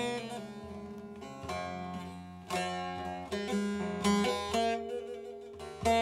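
Background music: a plucked string instrument playing a melody, note by note, each note struck sharply and then fading.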